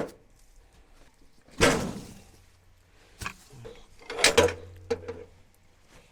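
Heavy wooden thuds and knocks: one loud thud, a smaller knock, then a loud cluster of knocks, as cut pieces of red oak are knocked loose and dropped at a stopped sawmill.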